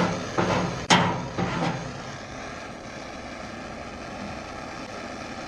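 A metal paint scraper rasping in a few short strokes along a steel toolbox edge, with a sharp tap about a second in. After about two seconds only the steady rushing hiss of a handheld propane torch flame burning off the paint remains.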